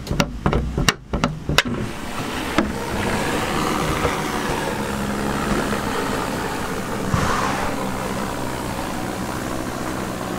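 Strong gale wind blowing across a sailboat at anchor: a steady rushing noise with a low steady hum beneath it. A few sharp knocks come in the first two seconds.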